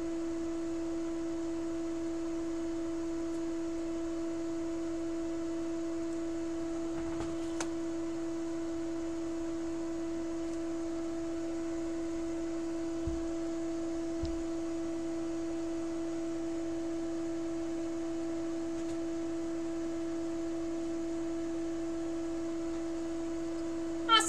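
A steady, unchanging electrical hum: a single pitched tone with faint overtones. A few faint soft taps come about a third and two-thirds of the way through.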